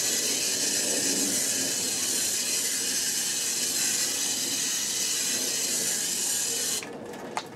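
Garden hose spray nozzle spraying water onto perlite in a hydroponic bucket, a steady hiss that cuts off abruptly about seven seconds in as the nozzle is shut.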